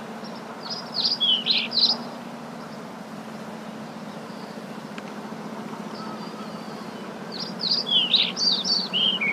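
A recording of birds chirping in quick, darting calls, in two bursts: about a second in and again near the end, over a steady low hum and hiss. It is the soundtrack of a stock birds-flying clip playing back in a video editor, and it cuts off suddenly when playback stops.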